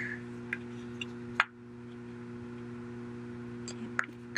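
A few small, sharp clicks and ticks from handling small iPhone parts and repair tools, the loudest about a second and a half in, over a steady low hum.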